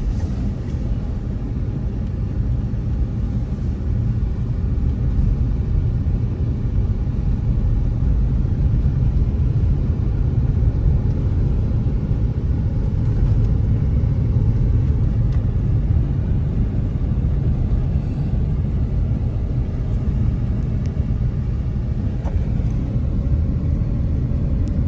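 Steady low rumble of a car driving, engine and road noise heard from inside the moving car.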